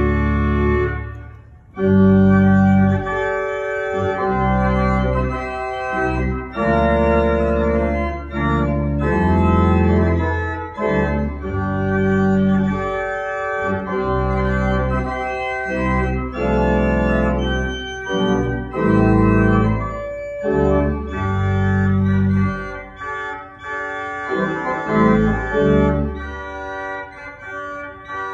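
Church organ playing sustained chords over a deep pedal bass. The sound drops out briefly about a second in, then the music carries on through changing chords.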